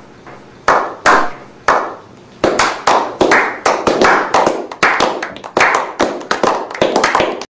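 A slow clap by a small group of people: single hand claps about a second apart, quickening from about two and a half seconds in into rapid, overlapping applause that cuts off suddenly at the end.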